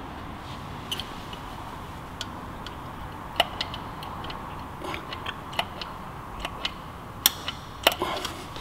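Scattered light clicks and ticks at irregular intervals as an oiler with a red flexible spout is handled at the SU carburettor's dashpot, topping it up with SAE 20 oil; a few clicks stand out louder over a faint steady room background.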